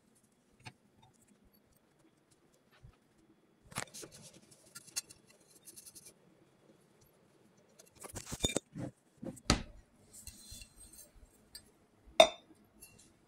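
Scattered knocks, rustles and light clicks of household objects being handled, with one sharp clink near the end that is the loudest sound.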